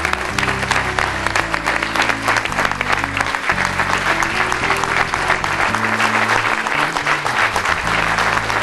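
Banquet audience applauding, many hands clapping steadily, over background music with low held bass notes that change every second or so.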